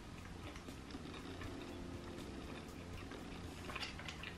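Quiet chewing of a McDonald's spicy chicken nugget, with faint mouth clicks and smacks and a few louder clicks near the end, over a low steady hum.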